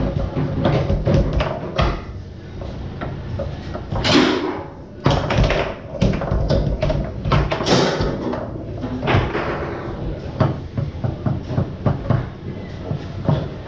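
Foosball being played on a Tornado table: a fast, irregular run of sharp clacks and knocks as the hard ball is struck by the rod figures and bangs off the table's walls, with a few louder hits.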